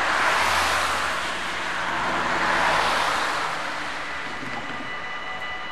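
Cars passing close by on the road, a swell of tyre and engine noise that peaks twice and then eases. Near the end the level crossing's warning bell starts ringing with a steady tone as the crossing closes for a train.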